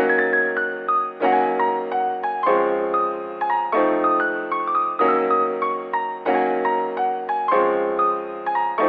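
Background music: a gentle piano piece, with chords struck about every second and a short melody of notes over each.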